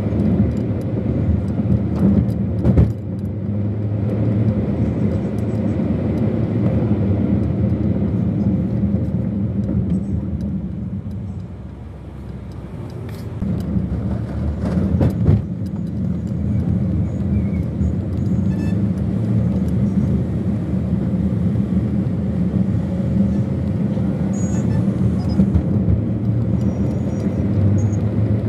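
A car driving in city traffic, heard from inside the cabin: steady engine and road hum that eases off near the middle as the car slows, then builds again as it moves off. Two sharp knocks, about 3 s and 15 s in.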